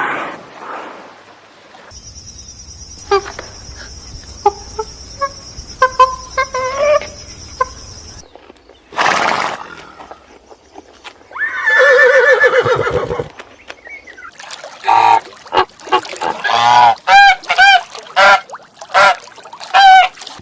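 A run of animal calls. Scattered short calls sound over a steady high hiss, then comes one long pitched call, and near the end a quick series of about ten short pitched calls.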